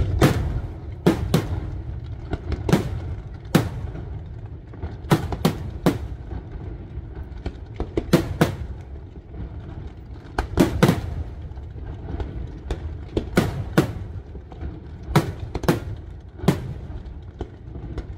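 Aerial firework shells bursting in a fireworks display: a string of sharp bangs, roughly one a second and some in quick pairs and triples, over a continuous low rumble.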